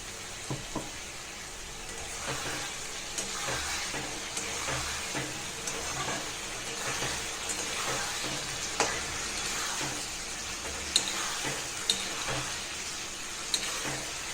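Potatoes and peas in a wet ground spice paste sizzling in hot oil in a kadai while being stirred: a steady frying hiss with rhythmic scraping strokes and a few sharp clinks.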